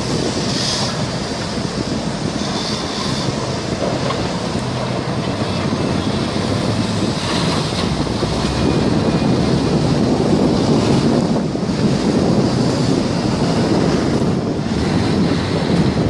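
Steady loud rushing of wind on the microphone, with a low rumble underneath that grows somewhat louder in the second half.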